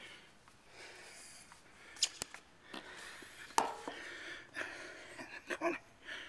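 Handling noise from a camera being moved and set down: a few sharp knocks and clicks, then scattered short rustles and bumps.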